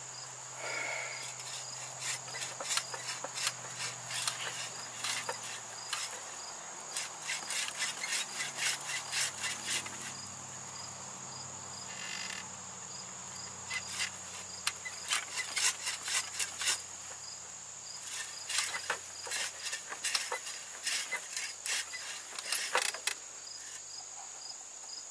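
Hand saw cutting through a tree trunk in several bouts of quick rasping strokes, with short pauses between, over a steady high-pitched drone of crickets.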